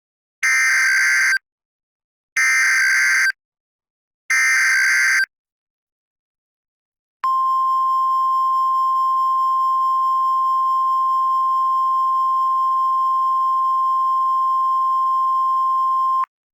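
Emergency Alert System tones for a tornado warning. Three buzzing digital SAME header bursts about a second apart, then a steady single-pitch attention tone near 1 kHz held for about nine seconds before it cuts off.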